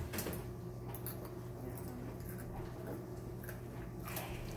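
A few scattered light clicks and taps from a spice shaker of onion powder being handled and shaken, over a steady low hum.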